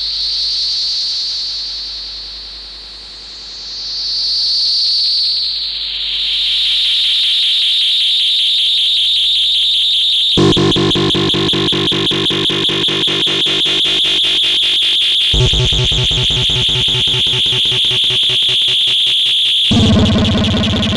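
Synthesized UFO sound effect: a high electronic whine swells twice, then holds steady. About ten seconds in, a low, rapidly pulsing drone joins beneath it, and it grows deeper and fuller later on.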